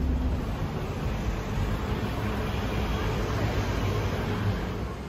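A shuttle bus's low engine hum, cut off about half a second in, giving way to a steady wash of street traffic noise with a fainter engine hum that fades near the end.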